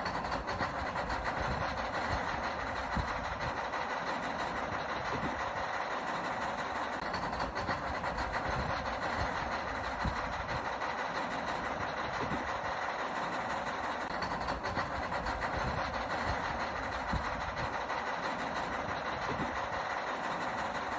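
Small electric motors and gearboxes of a radio-controlled toy construction vehicle running, a steady whirring with faint ticking.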